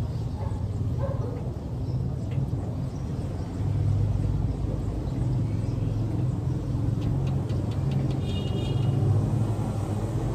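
A steady low rumble that gets a little louder about four seconds in, with a faint high-pitched sound near the end.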